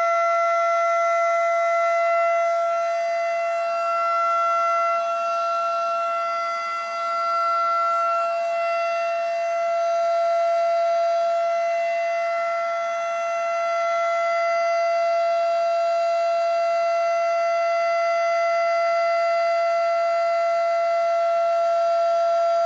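Federal Signal Model 5 outdoor warning siren sounding its steady Alert signal: one unbroken tone held at a constant pitch, with slight rises and falls in loudness.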